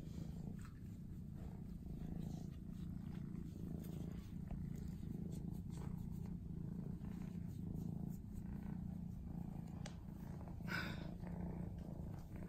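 Black kitten purring steadily while being scratched under the chin, with a short rustle about eleven seconds in.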